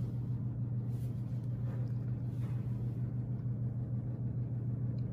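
A steady low hum of room background noise, unchanging throughout.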